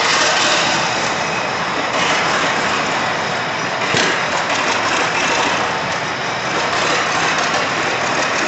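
Engine of a large early steel-wheeled tractor running steadily as the tractor moves slowly ahead, with a brief knock about four seconds in.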